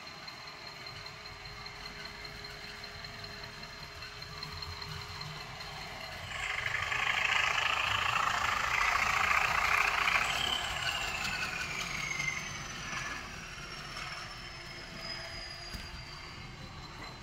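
Model Class 20 diesel locomotive with a DCC sound decoder, its small speaker playing a running diesel engine while the wheels roll along the track with a wagon train. The sound gets much louder and hissier for several seconds in the middle as the train passes close, and a high whine falls slowly in pitch near the end.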